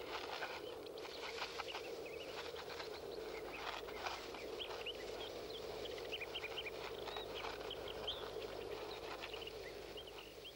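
Newborn woodrat pups in a grass nest giving many short, high squeaks, with light rustling of dry grass.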